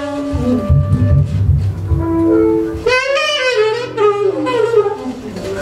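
Tenor saxophone improvising free jazz: held notes, then about three seconds in a bending, squealing run up into high overtones. A low rhythmic pulse from bass and drums runs underneath and thins out for a moment after the run.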